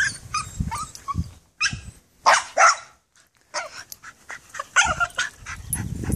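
Small shaggy dog giving a string of short, sharp barks and yips in quick bursts, the loudest two close together a little past two seconds in, then a brief pause about three seconds in before the barking resumes, excited at a rabbit in its hutch.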